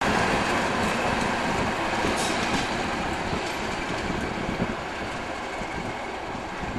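British Rail Class 37 diesel locomotive with an English Electric V12 engine running light engine past, with no train behind it. Its sound slowly fades as it draws away.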